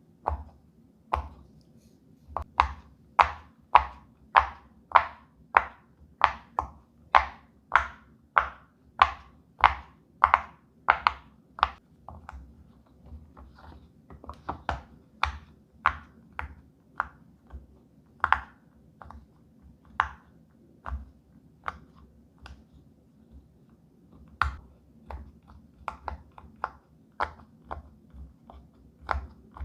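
Silicone pop-it fidget toy bubbles being pressed down one after another, a steady run of crisp pops about two a second, softer and more uneven after the first dozen seconds.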